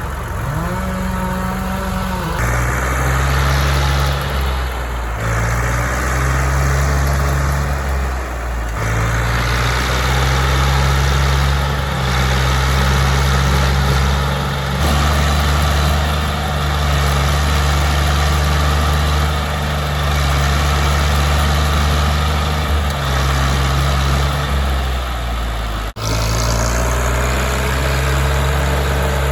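A large engine running continuously, its pitch and load stepping up and down every few seconds as if worked by an operator. There is a brief break in the sound near the end.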